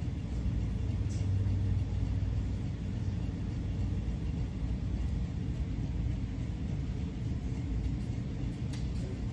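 Steady low rumble of a large steel hall's ventilation and heating units, with a low hum that is strongest in the first few seconds and a couple of faint clicks.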